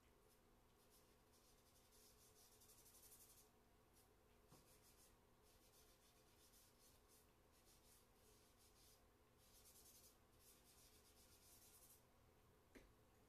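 Faint scratching of charcoal on drawing paper in quick repeated strokes, in two stretches, with a small tap near the end.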